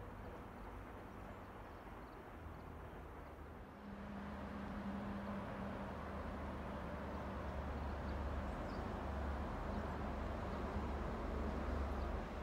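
JR Kyushu YC1 hybrid diesel-electric railcar running, heard from its front cab: a steady low hum and rumble from the train and its wheels on the rails. It grows louder about four seconds in, with a brief low whine soon after.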